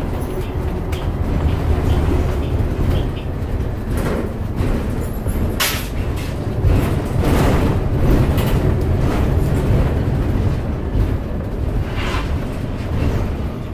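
Muni city bus driving, heard from inside the passenger cabin: a steady low rumble of drivetrain and road noise, with a few brief clatters from the body.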